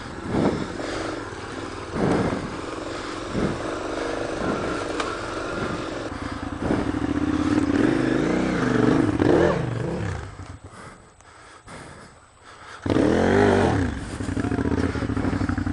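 KTM adventure motorcycle engines running and revving at low speed over rough trail, with knocks and clatter from the bikes. The engine sound drops away for about two seconds, then comes back with a rev.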